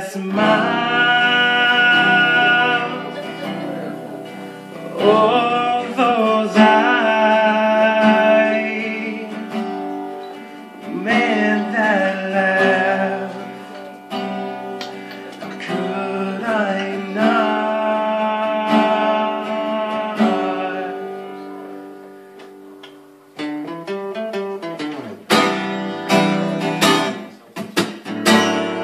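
A man singing long held notes over a strummed acoustic guitar, in four phrases. About 23 seconds in the singing stops and the guitar strums on alone, with harder strokes near the end.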